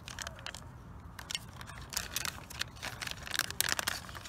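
Clear plastic bag crinkling and rustling in the hands, with small irregular clicks, as drone propellers are handled inside it.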